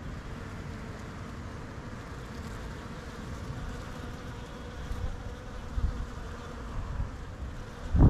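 Many honeybees buzzing around a flowering bush as they forage, a steady hum. A few low thumps sound in the second half, the biggest near the end.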